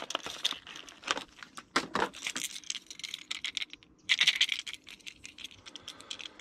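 Small metallic clicks and jingles of a swimbait's treble hooks and a wire leader's snap being handled and clipped together, with a brief rustle about four seconds in.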